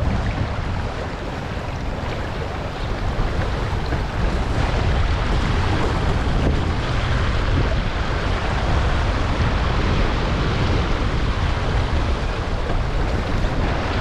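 Wind buffeting the microphone over water rushing past the hull of a racing sailboat under way: a steady noise that grows louder about four seconds in.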